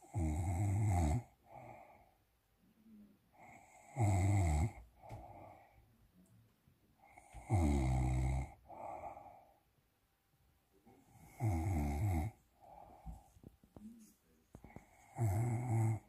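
A man snoring loudly while asleep: five low, buzzing snores, each about a second long and about every three and a half to four seconds, each followed by a softer breath out.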